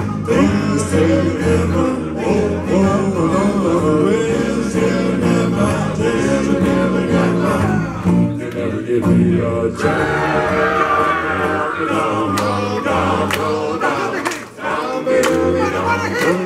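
Live band playing: male voices singing over electric guitar and bass guitar. About eight seconds in the low instruments drop out and a group of voices carries on, held and swelling. The full band comes back in near the end.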